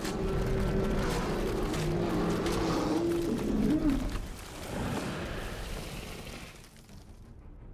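The Kraken, a giant sea monster film sound effect, roaring at close range: a long, rough roar with a wavering pitch that stops about four seconds in, then dies away into quiet.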